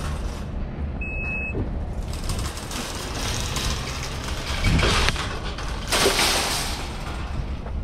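Parking-lot ambience while walking to a car: a steady low rumble of traffic and wind, a short electronic beep about a second in, and two brief loud rushing noises around five and six seconds in.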